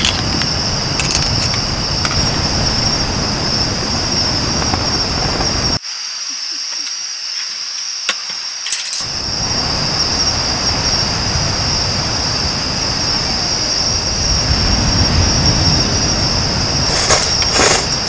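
Insects, likely crickets, singing in a steady high-pitched drone over a low, noisy rumble. The rumble drops out abruptly about six seconds in and comes back about three seconds later, while the insect drone carries on.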